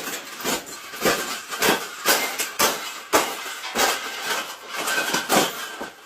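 A wire birdcage rattling and clanking with a quick, irregular run of sharp metal knocks, about two a second.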